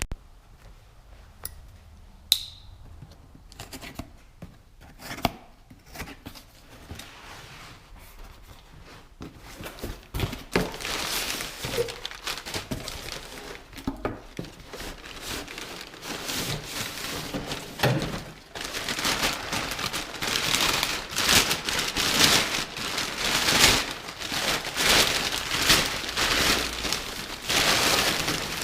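Packaging being opened by hand: scattered knocks and handling clicks at first, then continuous crinkling and tearing of wrapping that grows louder in the second half.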